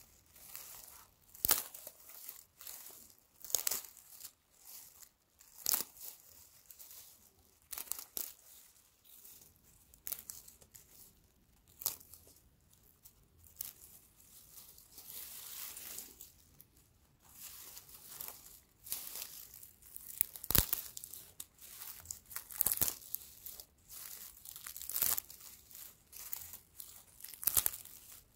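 Dry straw stalks rustling, crackling and snapping as a hand gathers, bends and twists them into a bunch. The sound comes in irregular bursts a second or two apart, with a few sharp snaps standing out.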